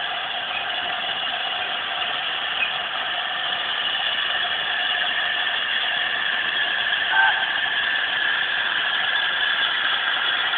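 Steady hiss of steam escaping from an LNER A4 streamlined steam locomotive, with a brief squeak about seven seconds in.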